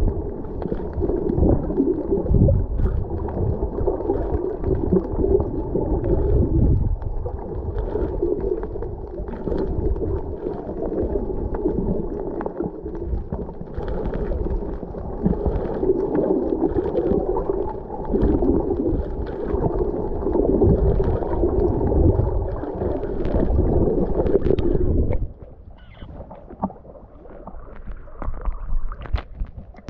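Muffled underwater noise through an action camera's housing: a dense, churning rumble and gurgle of water. About 25 seconds in it drops sharply to quieter water with small splashes at the surface.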